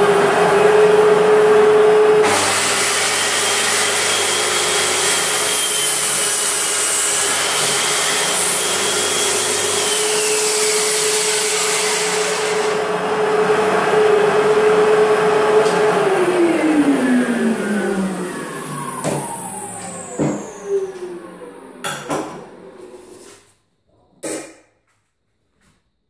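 Corded circular saw running at a steady whine, then cutting through a board about 45 mm thick for about ten seconds. It runs free for a few seconds and spins down with a falling whine, and a few knocks and clicks follow.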